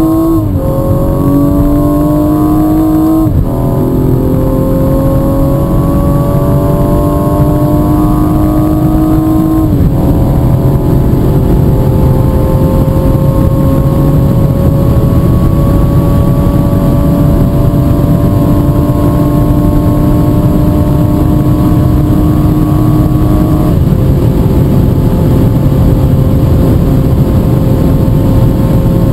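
BMW M135i's turbocharged straight-six under full-throttle acceleration at high speed, heard from inside the cabin. Its pitch climbs slowly in each gear and drops at four upshifts, the last about twenty-four seconds in.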